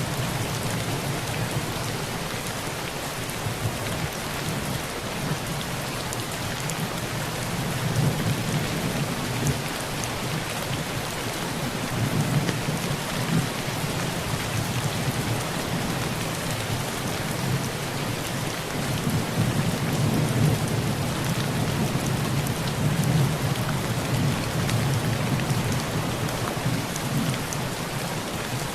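Heavy rain pelting a tin roof: a steady hiss dotted with the ticks of single drops. Low rolls of thunder rumble underneath and swell several times, around a third of the way in and again in the second half.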